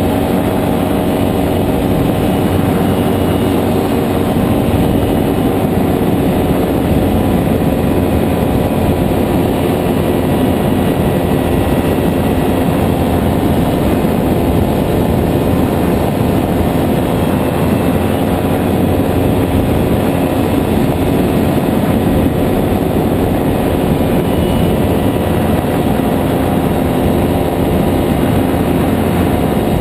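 JPX two-stroke engine and pusher propeller of a nano trike (powered hang glider) running steadily at a constant cruise setting, with no change in pitch.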